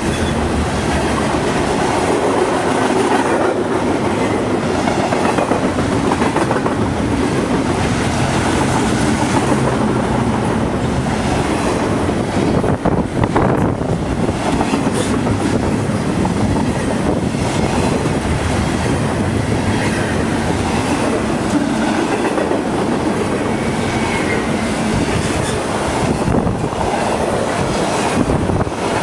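BNSF intermodal freight train's double-stack container cars and trailer flatcars rolling past close by: steel wheels running on the rails in a loud, steady noise, with wind noise on the microphone.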